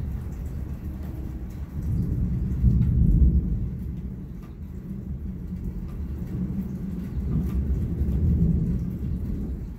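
Rolling thunder: a low rumble that swells about two seconds in and rolls on, building again near the end.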